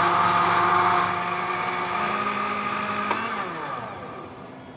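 Countertop electric blender running, whirring a liquid yogurt drink. The motor runs loud and steady at first, then eases off, and its pitch sinks as it slows near the end.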